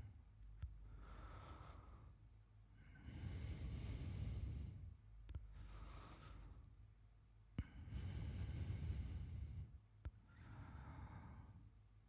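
A man's slow, deep sleeping breaths, close-miked, in and out about once every four to five seconds. There are a few faint clicks.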